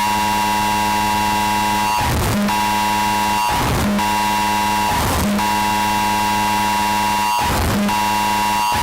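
Emergency Alert System alarm: a loud, heavily distorted steady tone with many overtones over a hiss of noise, broken four times by short bursts of noise.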